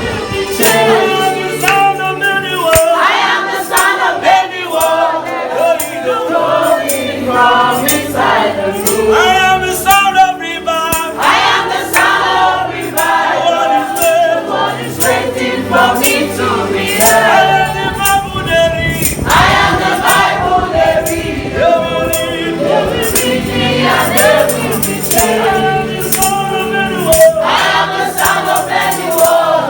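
A choir singing a gospel worship song, with a steady tambourine-like jingle keeping the beat.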